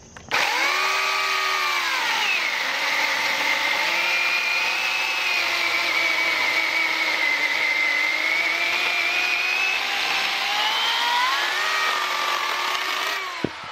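Oregon corded electric chainsaw with a freshly sharpened chain cutting through a log. The motor's whine drops in pitch as the chain bites into the wood, holds there under load, rises again as the cut finishes near the end, then stops suddenly.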